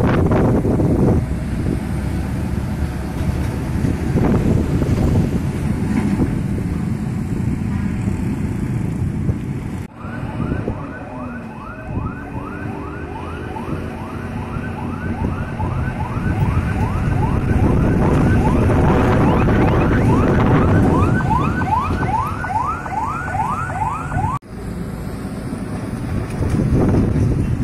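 Heavy diesel trucks and motorbikes running past on a bend. Through the middle stretch a siren sounds as a run of short falling chirps, about three a second, coming faster toward the end, and it starts and stops abruptly with cuts in the footage.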